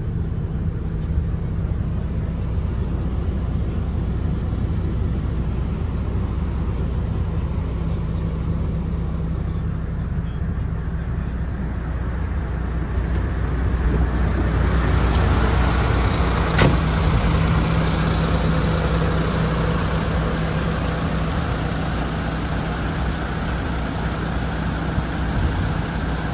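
MAN TGX 26.500's 12.4-litre straight-six diesel idling steadily in neutral, a constant low hum. About halfway through the sound becomes brighter and a little louder, and a single sharp click comes a couple of seconds later.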